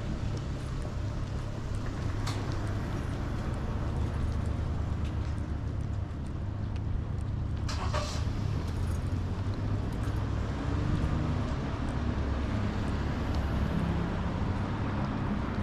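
Steady low rumble of road traffic in a town street, with a sharp click about two seconds in and another, louder one about eight seconds in.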